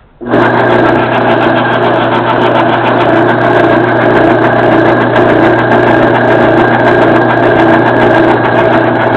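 Craftsman Dunlop 109 metal lathe switched on about a quarter second in, then running steadily under power with its carriage feed engaged: a steady motor hum with gear whir from the freshly reassembled headstock.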